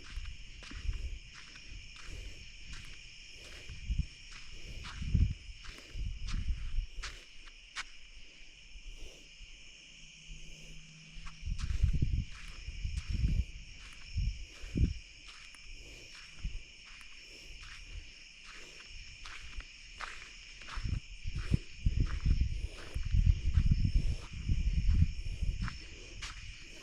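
Steady night chorus of crickets, a constant high trill, with irregular low thumps and rustles from walking close to the microphone, which pause for a few seconds around ten seconds in.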